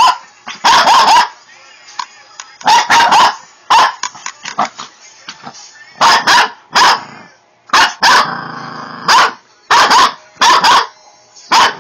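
Shih Tzu barking repeatedly in short, sharp barks, often two or three close together, defensively at a hair flat iron held near it.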